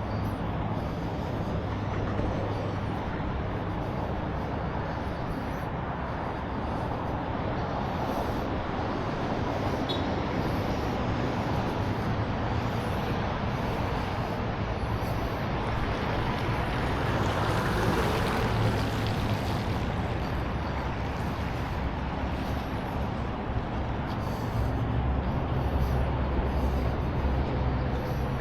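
Steady traffic noise with vehicle engines running, a low engine hum coming and going; the hum grows louder near the end as a vehicle comes close.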